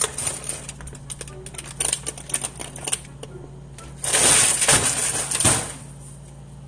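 Large plastic bag rustling and crinkling as hands rummage through it: scattered crackles for about three seconds, then a louder, denser rustle lasting about two seconds, all over a steady low hum.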